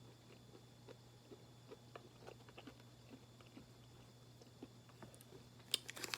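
Faint chewing of a chewy peanut granola bar, with soft, irregular mouth clicks. Near the end, a short burst of louder crinkling from the bar's wrapper.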